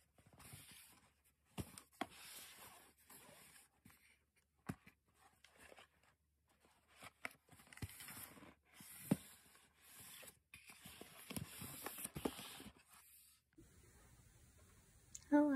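Cardboard shipping boxes being handled: hands rubbing and sliding them over a tabletop in short, soft scrapes, with a few light knocks as they are set down.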